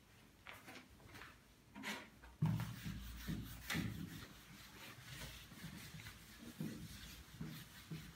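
Whiteboard eraser rubbing across a whiteboard in a run of short wiping strokes, with a knock about two and a half seconds in.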